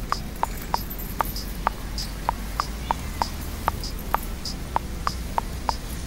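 Fairly regular clicking, about three clicks a second, with higher-pitched clicks falling between the lower ones, over a low steady hum.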